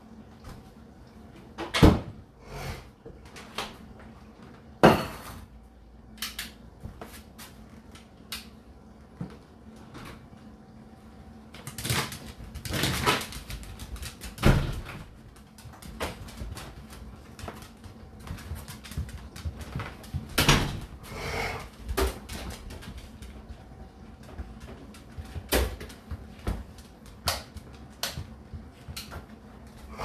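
Whirlpool dishwasher running through its final rinse: a low steady hum with irregular clicks and knocks scattered throughout, and a few longer rattly stretches.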